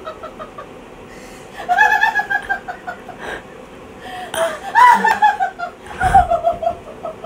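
A woman laughing from being tickled, high-pitched giggling in three main bouts, the pitch sliding down through the later ones.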